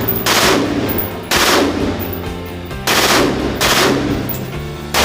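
Gunfire: four loud shots or short bursts at irregular spacing, each trailing off in a brief echo.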